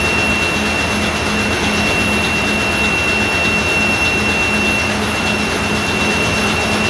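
A ship's turbocharged in-line diesel main engine running steadily at full sea speed. It is loud and unbroken, with a steady high whine over a low, pulsing din.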